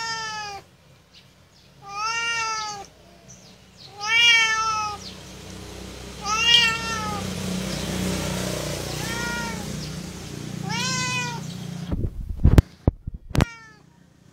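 Domestic cat meowing over and over, about six meows roughly two seconds apart, each rising then falling in pitch. Near the end a few sharp knocks or clicks.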